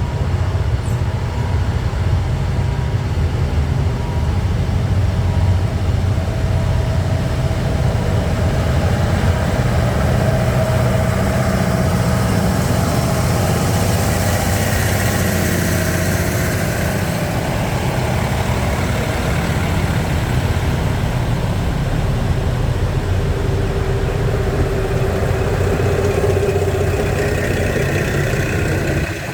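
A vehicle's engine running steadily, a deep even rumble, with a hiss that swells and fades around the middle.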